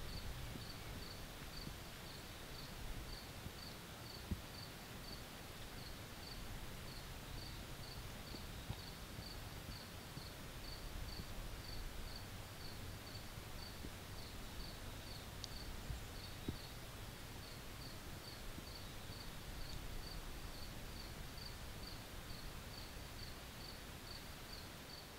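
An insect, likely a cricket, chirping steadily in short high notes, between two and three a second, over a faint low outdoor rumble.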